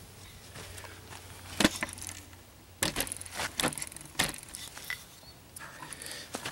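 Camera being picked up and repositioned by hand: a series of sharp handling knocks and rustles against the microphone, with footsteps on grass and dry leaves.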